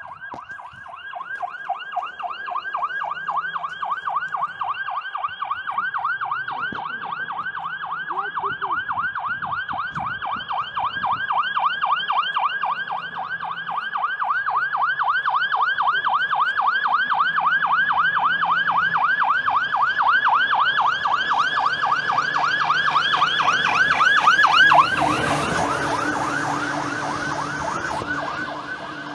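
Fire engine siren on a rapid yelp, several rising-and-falling sweeps a second. It grows louder to a peak a few seconds before the end, then turns blurrier and fades as the vehicle passes. A faint engine rumble sits underneath.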